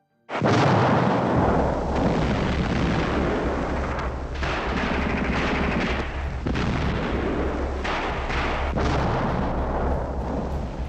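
War sound of gunfire and explosions: a continuous rumbling barrage that starts abruptly, with sharper blasts about four, six and a half and nine seconds in.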